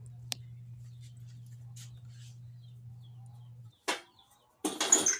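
Chickens squawking and clucking, loudest in a short sharp burst near the end, over a steady low hum that stops about three and a half seconds in.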